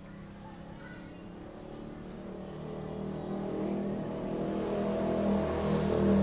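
A motor vehicle's engine approaching and passing close by, growing steadily louder to a peak near the end.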